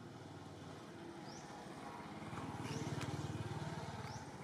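A motor vehicle engine passes in the distance, growing louder to a peak about three seconds in and then fading. Over it, a bird repeats a short, high, rising chirp about every second and a half.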